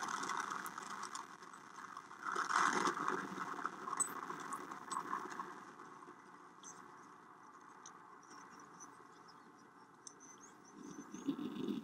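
Rocket motor exhaust noise from a launch: a rough, fluctuating crackle. It swells about two and a half seconds in and again near the end, with a quieter stretch of sparse crackle in between.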